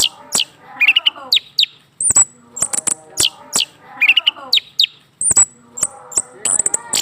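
Orange-headed thrush singing: sharp clicks and high whistled notes that slide steeply downward, given in quick phrases about once a second. This is a male stirred into song by a female placed beneath his cage.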